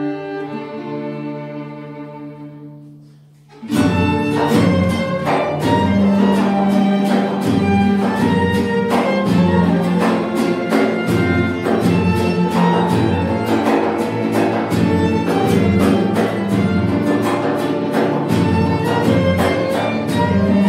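Folk ensemble of violins, cello and guitars playing a Cypriot folk song: a held chord fades away, then about three and a half seconds in the whole ensemble comes in loudly with a brisk, steady rhythm.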